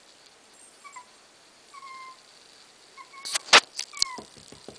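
Corgi puppy whimpering in short, high, falling whines. There are a few sharp knocks about three and a half seconds in, and soft thumps near the end.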